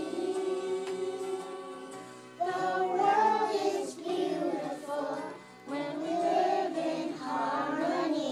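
A group of young children singing a song together over music, in phrases with short pauses between them.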